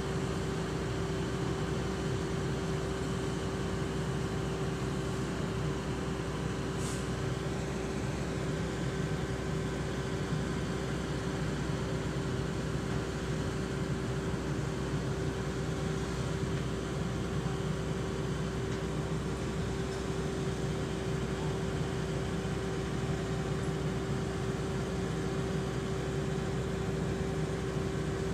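Vehicle engine running steadily at idle, a constant low drone with a steady hum tone over it.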